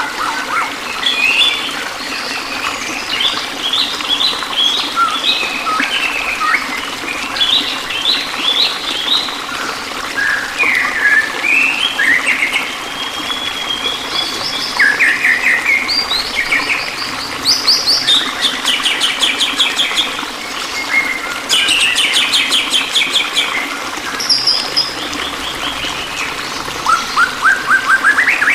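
Several songbirds chirping and singing in rapid trills and whistled phrases, one after another, over a steady trickle of running water.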